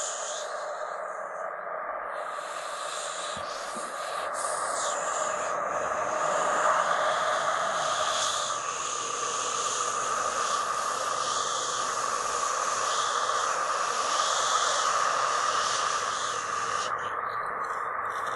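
Steady hissing drone from a recorded sound-poetry piece, with a fuller band in the middle register and a brighter hiss above it that swells and fades. The upper hiss drops away near the end.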